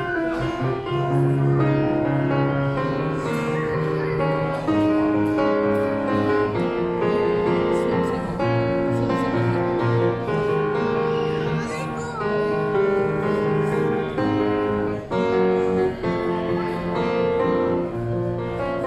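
Grand piano being played: a continuous piece of held notes and chords.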